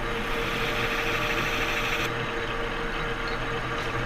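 Monarch manual lathe running steadily with a 4140 steel sheave in the chuck. A tool cutting a chamfer on the sheave adds a gritty cutting noise for about the first two seconds, then stops suddenly while the lathe keeps running.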